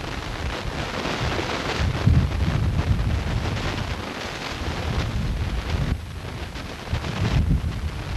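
Wind buffeting the camcorder's microphone: a rumbling, rushing noise that swells and eases in gusts, strongest about two seconds in and again near the end.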